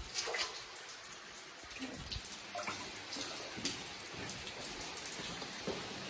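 Water running and dripping in a limestone cave: a steady trickling hiss with scattered sharp drips or splashes.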